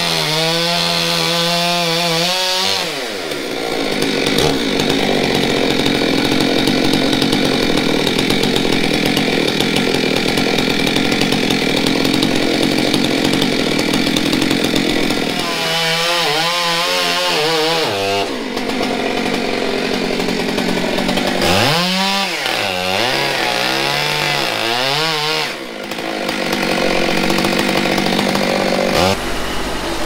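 Gas chainsaw cutting into a big log: long stretches of steady full-throttle cutting, broken near the start, about halfway through and again later by the engine revving up and down as the bar comes out of the wood.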